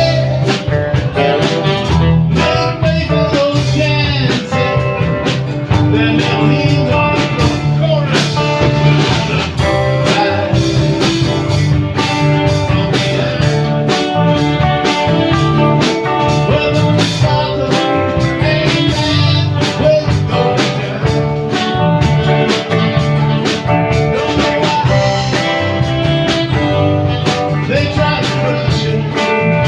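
Live blues band playing: guitars over a bass line and drum kit, with held lead notes on top and no sung words.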